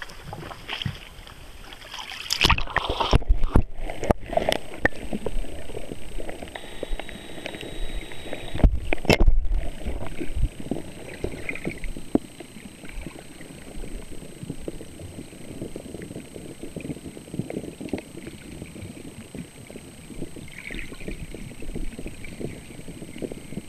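Loud splashing and knocking for the first ten seconds or so as a camera goes into the sea, then a steady, muffled underwater rumble and sloshing of water around the camera.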